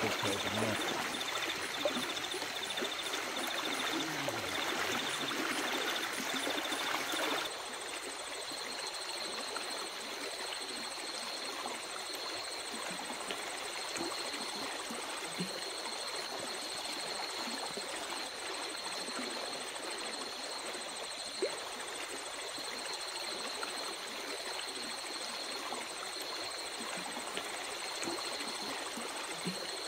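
Running water making a steady rushing hiss, with a thin, high pulsing trill above it. About seven and a half seconds in the sound shifts abruptly and becomes a little quieter.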